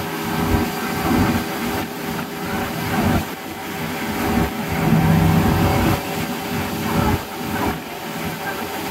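Motorboat engine running steadily at cruising speed, with the rush of water and wind along the moving hull and a few dull knocks now and then.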